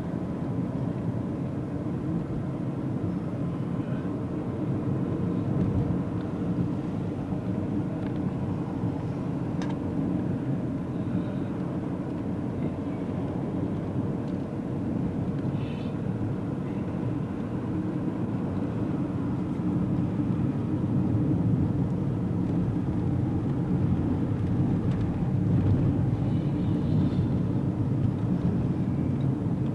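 Car driving on a mountain road, heard from inside the cabin: a steady rumble of engine and road noise that swells a little in the second half.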